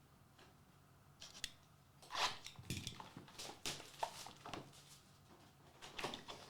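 Trading-card packaging being opened and handled by hand: a series of short crinkling, rustling and clicking bursts, the loudest about two seconds in, with quieter gaps between.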